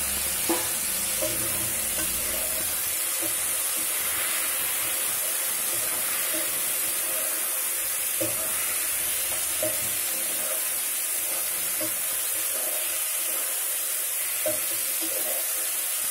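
Boiled snake gourd pieces and onions frying in oil in a nonstick pan: a steady sizzle as their water cooks off, with the occasional scrape and tap of a spatula stirring them.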